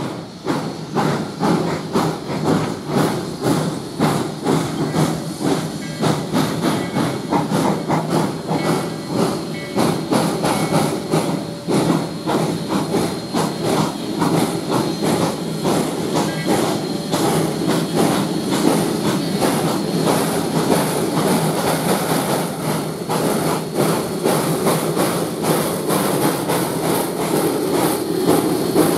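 Narrow-gauge coal-fired steam locomotives working together, led by Denver & Rio Grande Western 2-8-0 No. 346: a steady run of quick exhaust chuffs with hissing steam, getting a little louder near the end as the engines come closer.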